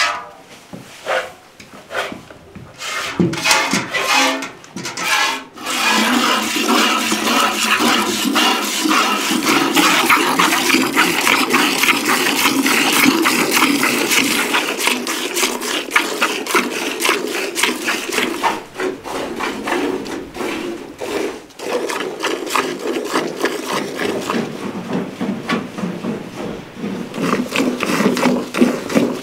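Cow being hand-milked into a galvanised steel pail: jets of milk squirt in a steady rhythm, ringing as separate hits on the bare metal over the first few seconds, then turning into a continuous frothy hiss as the milk foam builds up in the pail.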